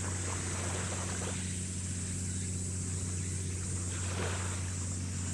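Steady low drone of a ship's engines running, with a steady high-pitched buzz above it.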